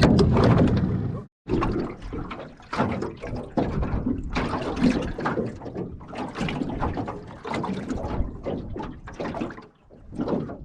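Water splashing and sloshing in irregular bursts, with a brief break about a second in.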